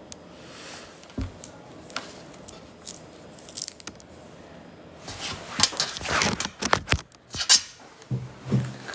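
Clothing fabric rustling and being handled close to the microphone: a few small clicks, then louder, busier rustling and scraping about halfway through.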